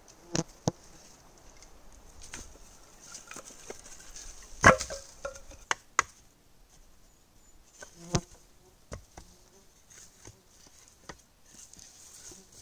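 Dry wooden sticks of a cord-lashed frame knocking and clacking as they are handled, a dozen or so sharp knocks with the loudest about five seconds in. Insects buzz steadily in the background.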